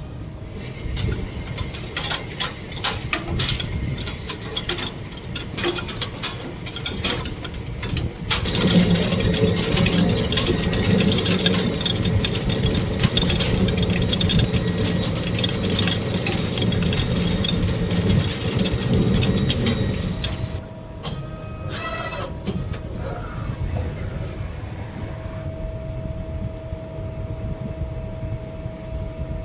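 ECOM LT 200 CNC lathe machining a test part. It starts with a rapid crackle of cutting, then gets louder and steadier with a low hum from about a third of the way in to two-thirds. A few clicks follow, then a steady whine near the end.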